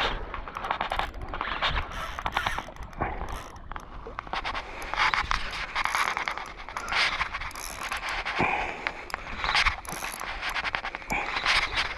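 Spinning reel being cranked to bring in a hooked fish: a run of fine rapid clicks from the reel, mixed with scraping and rubbing of hands on the reel and rod.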